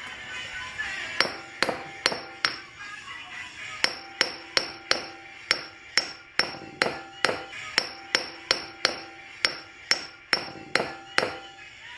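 Hammer tapping the inner CV joint flange of a B7 Audi A4 drive axle back on over the tripod: a few sharp metallic strikes with a ringing tone, a short pause, then a steady run of about two dozen more at roughly three a second.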